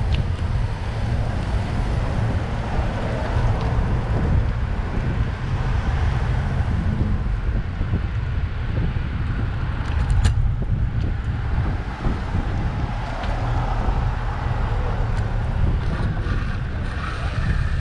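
Steady wind noise on the microphone of a camera riding on a moving bicycle, mixed with the sound of car traffic on the street. There is one sharp click about ten seconds in.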